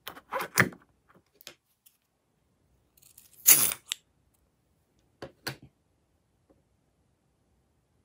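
Rubber balloon rubbing and squeaking in the hands, then scissors snipping through the rubber about three and a half seconds in, the loudest sound, followed by two short clicks a couple of seconds later.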